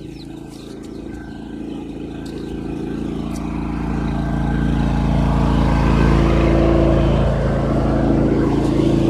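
A motor vehicle's engine running steadily, growing louder over the first several seconds and then holding level.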